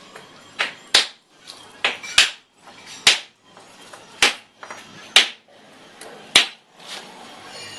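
Hammer blows on metal, six sharp strikes about a second apart, each with a short metallic ring, some preceded by a lighter tap.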